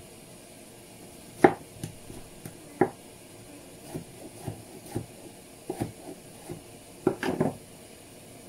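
Knife cutting tomatoes on a chopping board: irregular single knocks of the blade meeting the board, with a quick run of cuts near the end.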